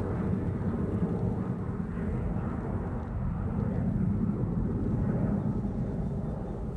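Embraer E175's twin CF34 turbofan engines at takeoff power: a steady low jet rumble with slow swells, easing off slightly near the end.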